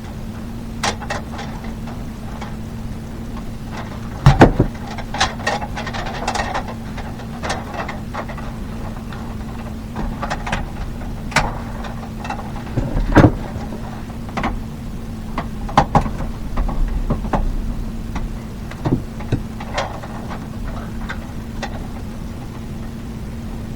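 Scattered clicks and knocks of hand work on electrical fittings and wiring, with two louder knocks about four and thirteen seconds in, over a steady low hum.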